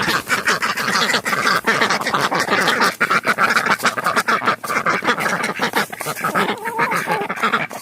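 Ducks quacking and eating fish pellets, with rapid clicking and clattering of bills throughout.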